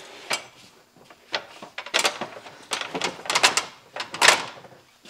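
Aluminium ladder clanking and clicking as it is handled and shifted on its mat: a string of sharp, irregular metal knocks, the loudest about four seconds in.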